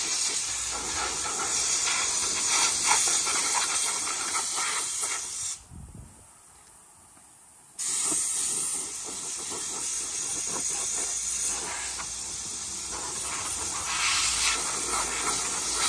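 Compressed-air blow gun hissing as it blows water and leaves off a washed dirt bike. The air is cut off for about two seconds near the middle, then the hiss starts again.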